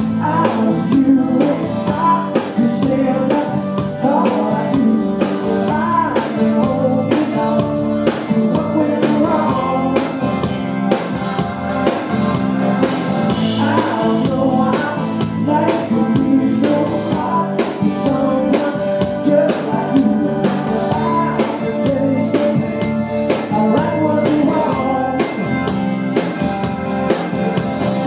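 Blues-rock band playing live: singing over guitar and drums.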